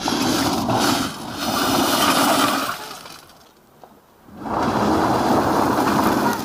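Car's wheels spinning in loose beach pebbles, the stones crunching and spraying loudly in bursts with a pause of about a second and a half in the middle: the car is stuck, dug into the pebbles.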